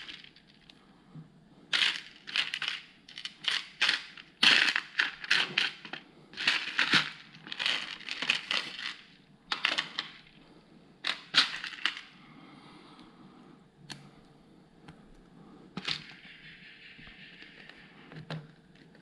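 Plastic LEGO Technic pieces rattling and clattering as they are handled and rummaged through, in repeated short bursts, then a few separate clicks as parts are snapped together in the last several seconds.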